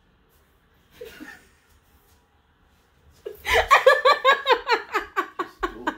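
A woman laughing hard, starting about three seconds in: a fast run of loud ha-ha pulses, about five a second, each dropping in pitch.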